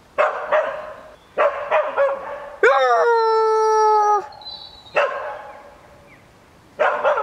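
A person imitating a dog with their own voice: a quick run of short barks, then a howl that rises and holds steady for about a second and a half. A single bark follows, and a second howl starts near the end.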